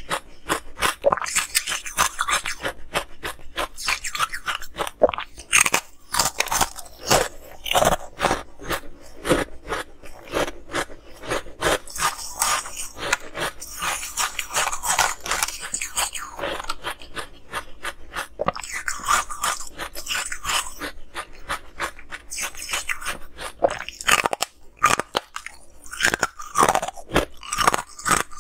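Close-miked crunching and chewing of frost-coated ice discs: rapid, crisp crunches one after another, easing off briefly about three-quarters of the way through before picking up again.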